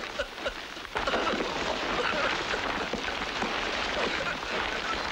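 Earth and stones pouring down into a dug canal, filling it in: a dense, steady rushing patter that starts about a second in.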